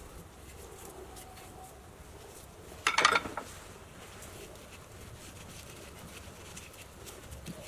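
Faint steady workshop background with one brief, loud clatter about three seconds in as parts and tools are handled at a wood lathe.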